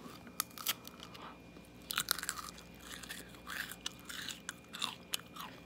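Biting into and chewing a crunchy chocolate-and-peanut Drumstick ice cream cone close to the microphone, as ASMR: irregular crunches and wet mouth clicks, some in quick clusters.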